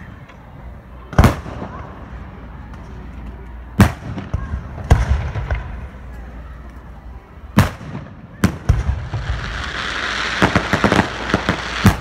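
Aerial firework shells bursting: several sharp bangs a second to a few seconds apart, then a dense crackling of many small pops near the end.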